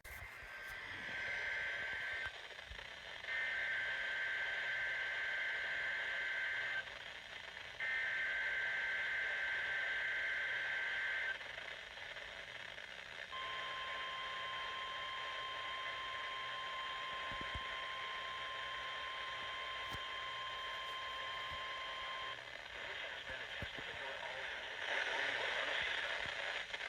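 NOAA Weather Radio broadcast heard from a weather radio receiver over static hiss: three long buzzing bursts of SAME digital header tones, each a few seconds long with short gaps between, then the steady high warning alarm tone held for about nine seconds, which signals the start of a required weekly test.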